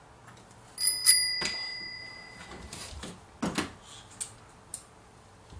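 A small metal bell struck twice in quick succession, ringing out and fading over about two seconds, followed about two seconds later by a dull thud and a few light clicks.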